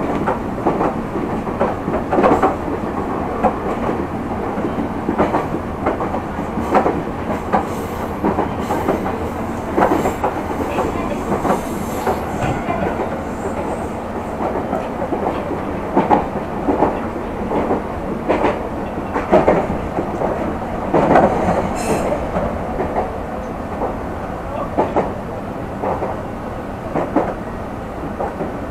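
Meitetsu electric train running at speed, heard from inside the car: a steady rumble with the clickety-clack of wheels passing over rail joints, coming at irregular intervals.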